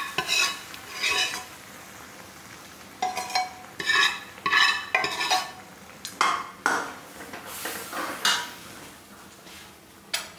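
A steel ladle stirring dal in a metal kadhai, clinking and scraping against the pan in several short runs with a brief metallic ring, with pauses between them.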